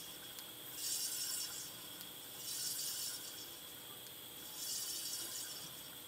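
Compressed air hissing through a tire inflator chuck into an aerosol can in three short bursts about two seconds apart, as the spent can is refilled with air to restore its spray pressure.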